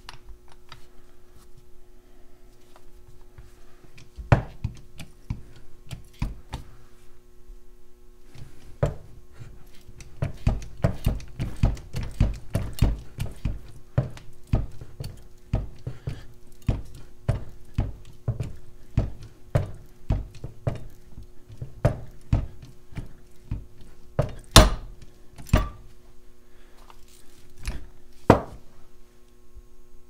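18-inch hand-pumped hydraulic cutter being worked on a 16 mm hardened steel U-lock shackle, the pump handle clicking and knocking about twice a second. About 25 seconds in a sharp, loud crack as the blades shear through the shackle, followed by a couple of heavier knocks.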